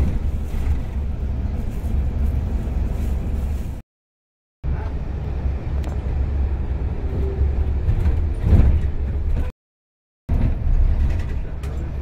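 Cabin noise of a moving bus: a steady low engine and road rumble, cutting to complete silence twice for under a second.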